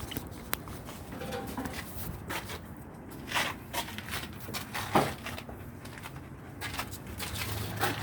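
Irregular taps and scuffs of movement, with one sharper knock about five seconds in.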